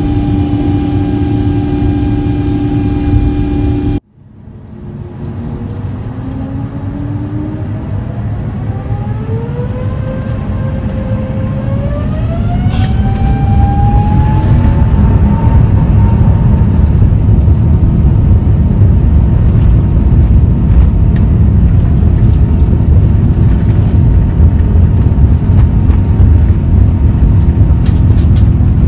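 Rolls-Royce Trent XWB turbofan of an Airbus A350 heard from inside the cabin. A steady engine whine over a low rumble cuts off abruptly about four seconds in. The engine then spools up again, its whine rising in pitch over about ten seconds, and settles into a steady, loud run at full takeoff thrust.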